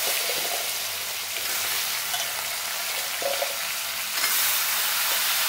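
Hot oil sizzling in a stainless-steel kadai as cubes of mukhi kochu (taro) and potato are dropped in, with a few light knocks. The sizzle swells about four seconds in as more pieces go into the oil.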